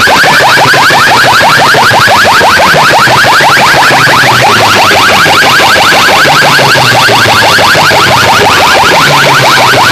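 Siren-like electronic sound effect blasted through a stack of horn loudspeakers: a fast, unbroken train of short rising chirps, about seven a second, over a low bass pattern. It is very loud, at the top of the recording's range.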